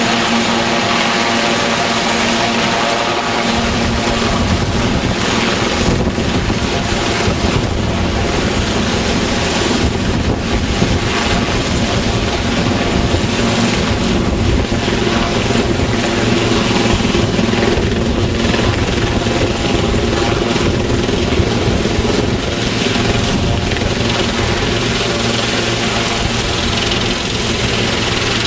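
Sikorsky S-76 twin-turbine helicopter coming in to land: a loud, steady rotor beat with a high turbine whine. The low rotor sound grows much stronger about three to four seconds in as it nears the ground, then keeps going as it sits on its wheels with the rotors still turning.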